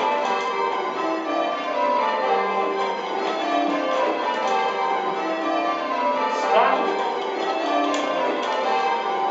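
Eight church bells ringing changes in spliced surprise major, struck one after another in a steady, continuous sequence. The bells are heard from the ringing chamber below them.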